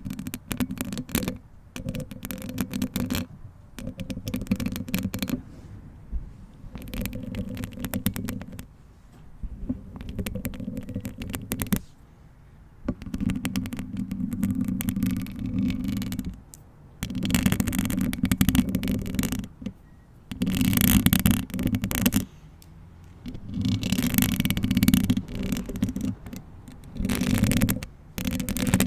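Long-nailed hands rubbing and scratching right at a bare microphone in repeated bouts of two or three seconds, with short pauses between them. Each bout is a low rumbling rub with crackly scratches over it.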